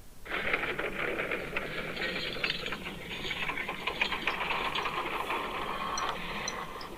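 The European Space Agency's sonification of Earth's magnetic field and its interaction with a solar storm, played back: a dense, continuous crackle of many small clicks over a steady noise. It starts a moment in and eases off near the end.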